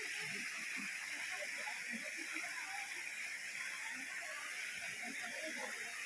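Steady rush of spring water pouring from a small cascade into the pool, with faint distant voices underneath.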